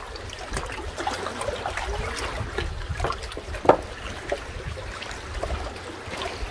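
Small waves lapping and trickling among limestone shoreline rocks in shallow lake water, with many small irregular splashes over a low steady rumble. One louder slap comes a little over halfway through.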